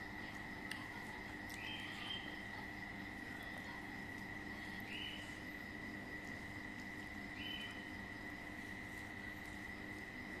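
Insects calling: a steady high-pitched drone with a short, higher chirp about every three seconds, and a few faint clicks.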